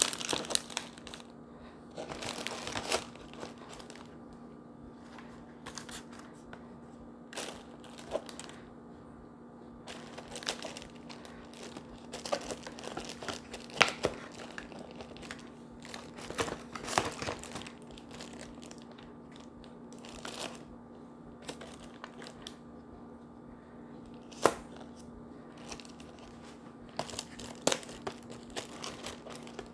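Craft paper crinkling and rustling in irregular bursts, with a few sharp taps as items are handled and set in place, over a faint steady hum.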